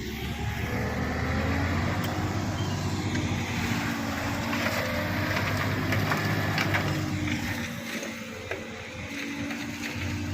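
Shantui SD16 bulldozer's diesel engine running steadily while working, with a dense clatter and grinding of tracks and blade over the engine note. The level eases off a little about eight seconds in, then picks up again.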